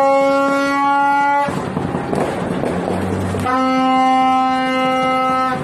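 A horn sounding two long, steady blasts of about two seconds each, the second starting after a pause of about two seconds.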